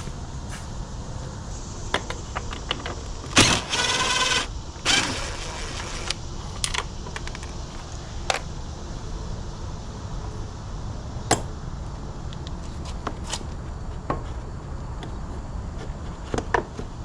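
Metal hand tools, sockets and a ratchet, clinking and clicking as they are picked up and handled. There are scattered sharp clicks and a denser run of rattling about three and a half to five seconds in.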